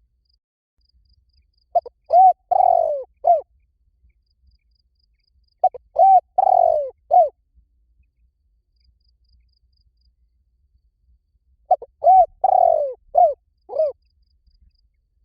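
Spotted dove cooing: three calls a few seconds apart, each a short phrase of about four or five rounded, rising-and-falling coo notes.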